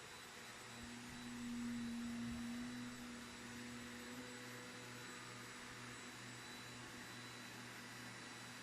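Faint steady hum with a low tone that swells for a couple of seconds about a second in.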